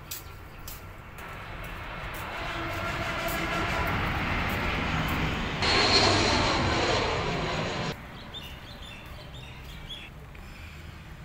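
Jet airliner flying low overhead, its engine noise building over several seconds. It jumps louder with a high whine about six seconds in, then cuts off abruptly about eight seconds in.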